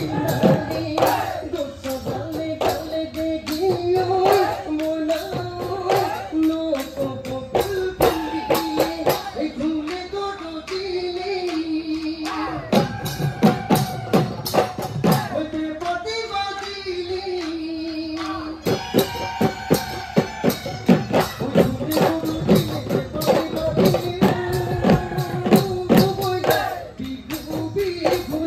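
Bihu music: dhol drums beaten fast under a sung melody. From about halfway through the drumming is heavier for several seconds, then the singing returns.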